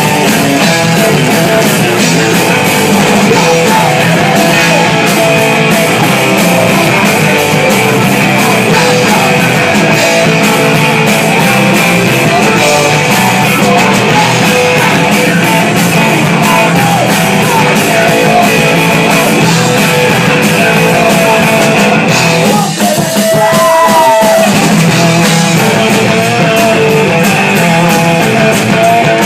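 Live rock band playing loud: electric guitar, drums with cymbals and a sung vocal, heard from the crowd in a small club. About three-quarters of the way through the band breaks off briefly, leaving a single held note that bends, then the full band comes back in.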